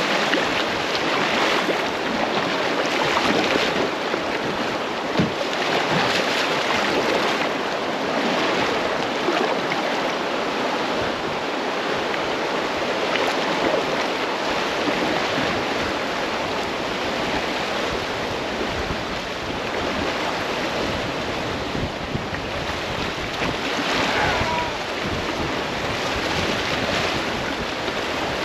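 River water rushing steadily over a shallow, fast-flowing stretch of current.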